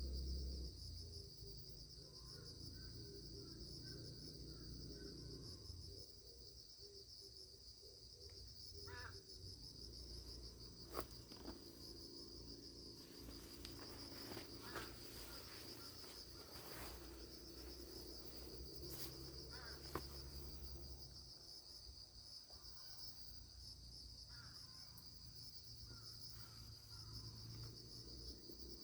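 Insects trilling in a steady, finely pulsing chorus, with a few sharp clicks partway through.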